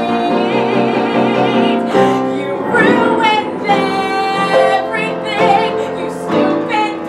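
A woman belting sung musical-theatre phrases with long held notes and a wide vibrato, over piano accompaniment.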